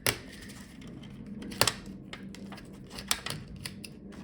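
Sharp clicks and taps of small hand tools on the laptop's internal parts while the Wi-Fi card is worked loose, a few separate clicks with the loudest about one and a half seconds in.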